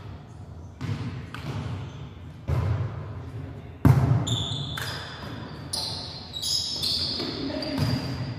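A volleyball rally in a gym hall: a few sharp slaps of hands hitting the ball, the loudest about four seconds in, followed by high squeaks of sneakers on the hardwood floor.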